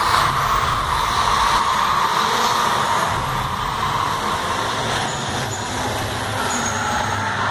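Stunt cars driving fast around the show arena: a loud, steady mix of engine and tyre noise.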